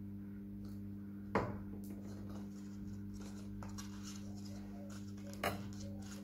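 Hands handling and pressing paper flowers onto card, with light paper rustles and small ticks and two sharp knocks, about a second and a half in and near the end, over a steady low electrical hum.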